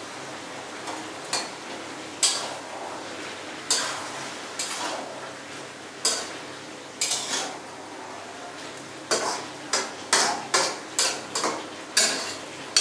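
Metal spatula stirring vegetables in a metal wok: a series of short scrapes against the pan, sparse at first and coming faster in the last few seconds.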